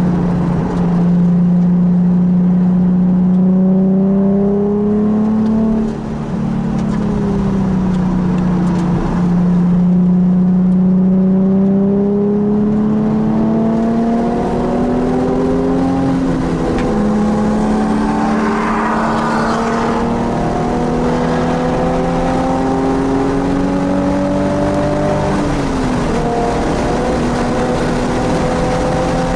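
Nissan 370Z's 3.7-litre V6 running hard at track pace, heard from inside the car. Its pitch climbs steadily and falls back at each gear change, about five times.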